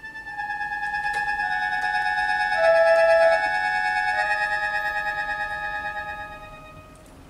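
Pigini chromatic button accordion playing long sustained chords that swell in, grow loudest about three seconds in, then thin out and fade away near the end.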